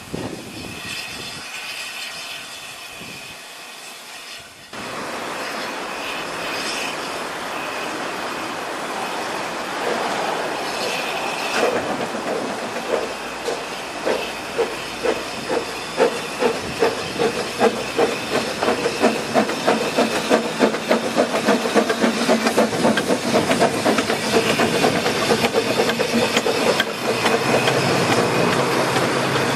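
Narrow-gauge double Fairlie steam locomotive hissing steam from its cylinder drains, then pulling away with regular exhaust chuffs, about two to three a second, that begin about a dozen seconds in.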